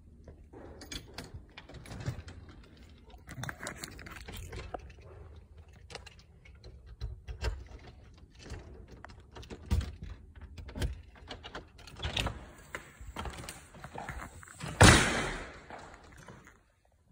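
Footsteps crunching on gravel and dirt, with irregular clicks and knocks. One much louder thump comes near the end.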